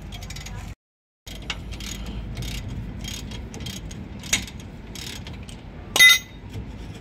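Metal hand tools working on a vehicle's rear leaf spring pack: a run of light metallic clicks and knocks, then a sharp metal clank about six seconds in that rings briefly.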